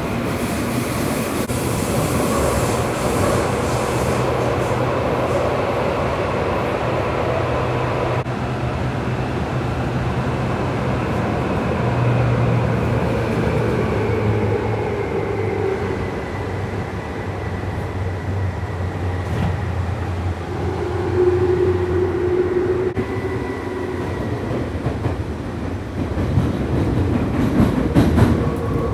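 Tokyu 8500 series electric train running on the metro, a steady rumble with a motor whine that slowly falls in pitch through the middle as the train slows. Near the end there are a few sharper wheel-and-rail noises.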